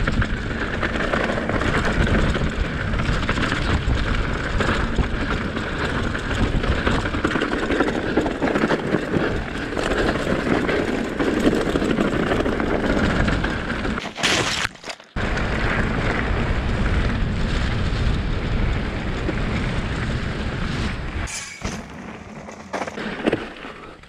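Action-camera sound of a mountain bike ridden over rough trail: wind rushing over the microphone, with the tyres and bike rattling and knocking throughout. The sound drops out briefly a little past halfway, and it is quieter and thinner near the end.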